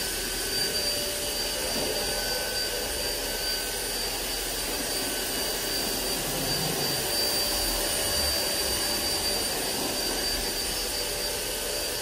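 Hoover ONEPWR Evolve Pet cordless upright vacuum running on a hard floor in bare-floor mode with the brush roll shut off: a steady high motor whine over the rush of suction as it picks up fine particles.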